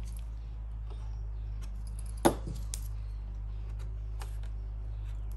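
Small plastic clicks and taps from handling an instrument cluster's plastic housing as its retaining clips are pressed and pried, with one sharper click a little over two seconds in. A steady low hum runs underneath.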